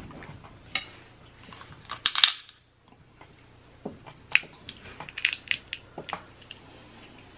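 Dungeness crab leg shells being cracked and snapped apart by hand: a string of sharp cracks and crunches, the loudest about two seconds in.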